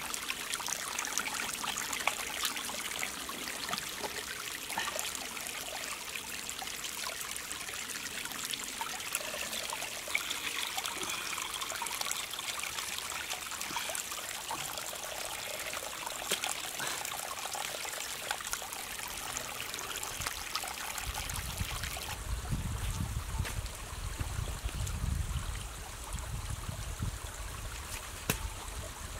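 Spring water trickling and splashing off a makeshift bark spout into a muddy pool, with small clicks and knocks as hands handle the wet wood. About three-quarters of the way in, the trickle fades back and a low rumble comes in.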